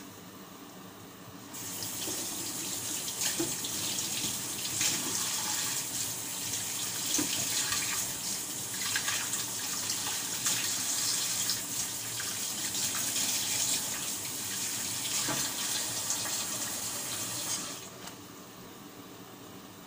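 Kitchen tap turned on about a second and a half in, water running into the sink for some sixteen seconds, then turned off near the end.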